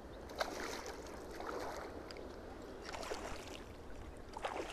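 Hooked mirror carp splashing at the water's surface close to the bank as it is played in: a few separate short splashes over a low steady rumble.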